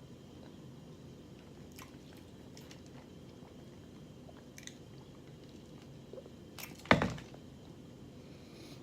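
A person chewing lettuce-wrapped rotisserie chicken close to the microphone, with a few faint wet mouth clicks. About seven seconds in comes one sudden loud thump that dies away quickly.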